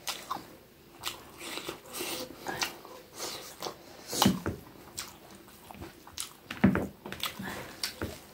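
Close-up sounds of eating rice and chicken curry by hand: chewing and biting, with wet sounds of fingers working the food on the plate. Irregular short clicks throughout, two louder ones about four and six and a half seconds in.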